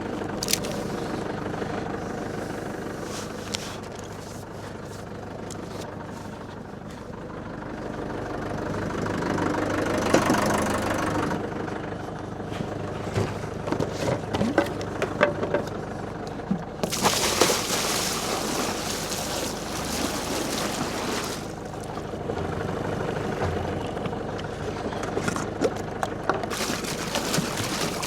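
Tractor engine idling steadily, with stretches of rushing noise and scattered knocks over it in the second half.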